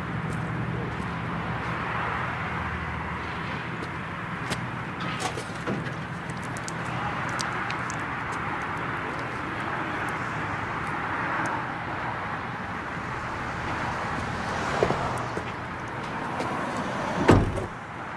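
Outdoor street ambience: a steady wash of traffic and passing cars, with scattered small clicks and knocks. A dull thump comes about fifteen seconds in, and a louder, deeper thump just before the end.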